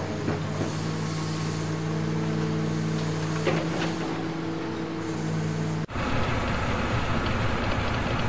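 Dubbed engine sound effects for model vehicles: a steady engine running, cut off abruptly about six seconds in and replaced by a deeper engine rumble.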